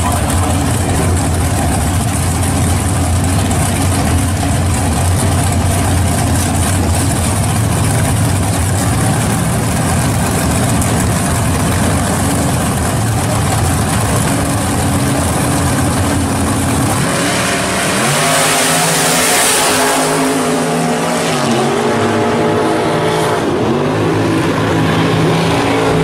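Two drag race cars' engines running loud and lumpy at the starting line for about seventeen seconds, then launching together and revving up hard down the strip, the pitch falling and climbing again a few times as they shift gears.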